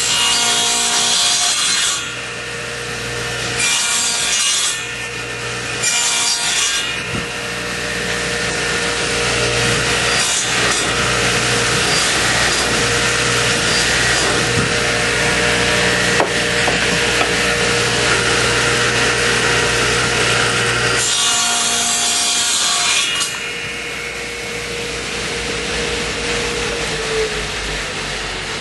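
Sears Craftsman radial arm saw running and being pulled through a wooden block, with three short cuts in the first seven seconds and then a long stretch of cutting. After about 23 seconds it runs quieter, and its hum dips near the end as the saw spins down.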